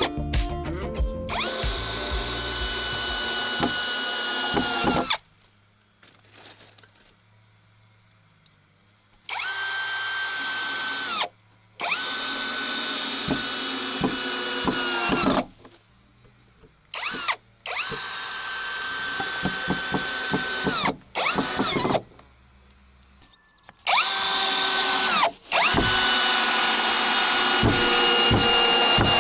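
Cordless drill driving screws to fasten wooden bars: about eight runs of a steady motor whine, from under a second to about five seconds each, with short pauses between. Each run stops sharply as the motor winds down.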